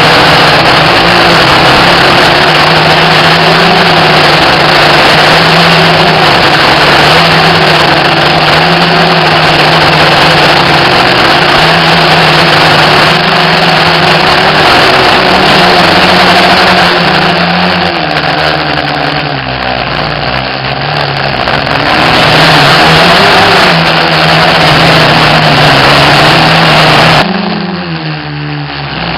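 FPV racing quadcopter's brushless motors and propellers buzzing loudly with a dense rushing noise, the pitch rising and falling with throttle. Near the end the sound drops abruptly and the motor pitch glides.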